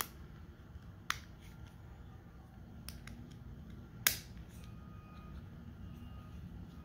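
Hard plastic toy parts clicking and snapping together: a gray plastic panel being pressed onto the pegs of a black plastic cage accessory for a Transformers figure. A few sharp clicks, the loudest about four seconds in.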